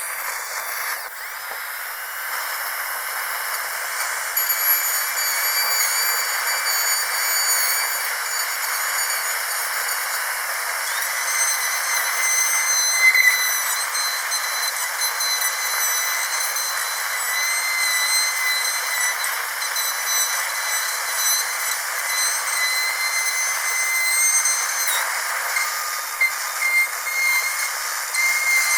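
Dental drill running continuously: a steady high-pitched whine of several tones over a hiss, the tones shifting a few times.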